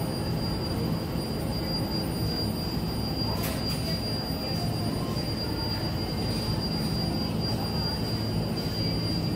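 Steady hum of supermarket refrigerated display cases, their compressors and fans running, with a constant high-pitched whine over it and a few faint clicks about three and a half seconds in.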